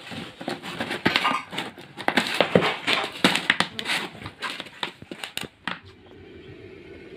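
Plastic jar being handled at its screw lid, the thin plastic crinkling and clicking in a run of sharp crackles that stop about six seconds in, followed by a faint steady hum.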